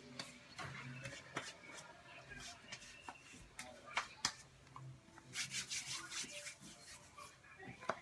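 Faint rubbing of hands on skin with light pats and swishes as aloe is worked into freshly waxed underarms to soothe the burning. The rubbing is densest for about a second past the middle.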